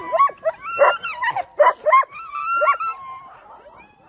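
Sled huskies yelping and howling together, many high calls overlapping and sliding up and down in pitch, dying down near the end.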